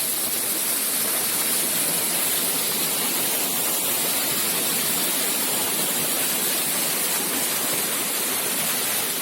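Rushing river water: a steady, even rush with no breaks.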